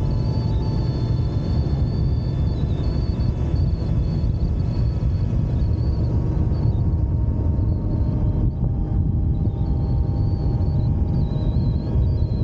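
Wind rush and road rumble on a moving motorcycle, loud and steady. A faint high whine holds through it.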